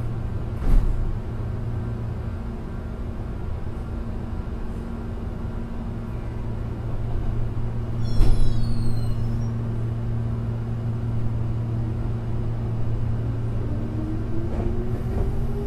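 Meitetsu 6800 series electric train standing with a steady low electrical hum. There is a clunk about a second in and another, with a brief high squeal, around the middle, typical of the brakes releasing. Near the end a single motor whine begins to rise in pitch as the train starts to pull away.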